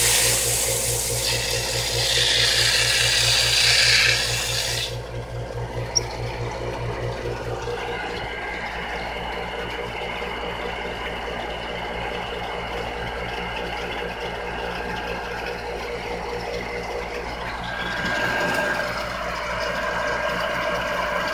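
Pacific Hydrostar 1 HP well pump running, its electric motor humming steadily. Water hisses out of the piping for about the first five seconds, then stops, and the pump runs on.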